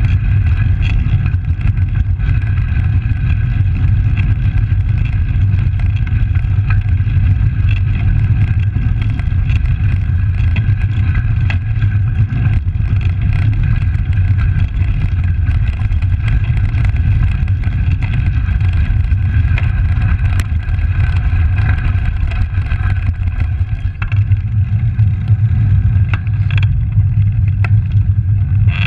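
Steady low wind rumble and tyre-and-road vibration picked up by a handlebar-mounted camera on a moving Langster road bike.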